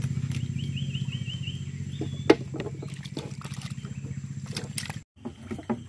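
Small boat engine running with a steady low pulsing note that slowly fades and then cuts off suddenly about five seconds in. A quick run of high chirps comes about a second in, and there is a sharp knock a little past two seconds.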